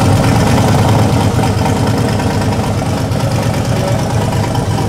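Twin-turbo 427 cubic-inch Dart LS Next V8 idling steadily at about 1,080 rpm, just after its first start-up.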